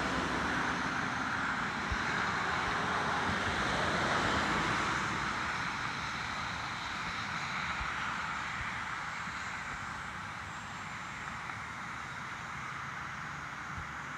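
Steady outdoor background noise like distant road traffic, a little louder over the first five seconds and then easing.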